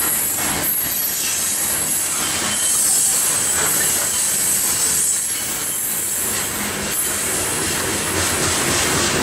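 Coal train hopper cars rolling past on steel rails, a steady rumble and rattle of wheels with irregular clacks at the rail joints, and a steady high-pitched wheel squeal over it all.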